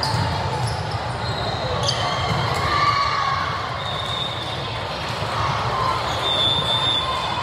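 Busy indoor volleyball hall: balls being hit and bouncing on the hard courts, with a steady background of crowd chatter.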